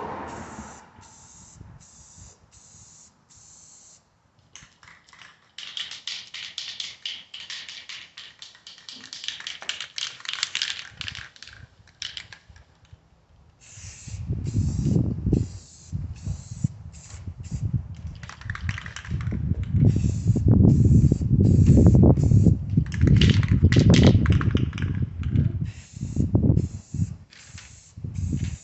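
Aerosol can of Rust-Oleum trim and bumper paint hissing, in short bursts and in one long spray of several seconds. From about halfway, gusts of wind rumble loudly on the microphone.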